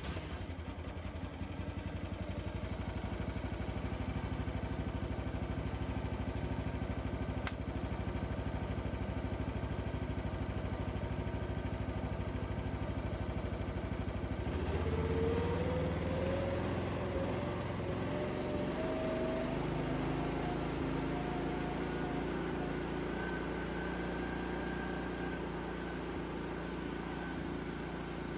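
Small Briggs & Stratton 13.5 hp engine on a mini excavator running steadily just after starting, its alternator under test. About halfway through it is brought up to a higher speed: the pitch climbs over a few seconds, then holds.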